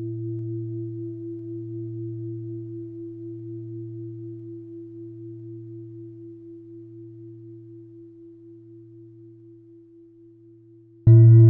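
Soundtrack music: a deep ringing tone with a steady wobble fades slowly, then a new, louder tone is struck near the end.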